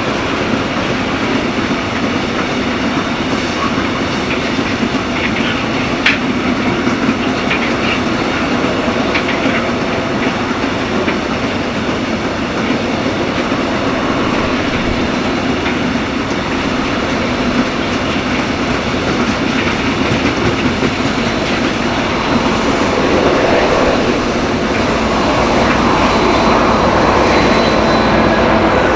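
Heavy freight train of loaded open wagons rolling past, wheels clicking over rail joints with a steady rumble. There is an occasional faint wheel squeal, and the sound grows louder over the last few seconds.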